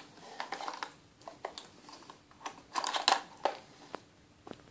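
Hard plastic packaging being handled as a pair of headphones is worked out of its box: irregular clicks and rustling, with a louder cluster of clatter about three seconds in.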